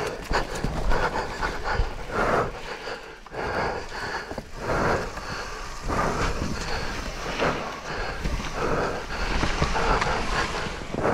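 Downhill mountain bike rolling over a muddy trail, the bike rattling over the rough ground, with wind on the microphone and the rider's hard breathing in swells about once a second.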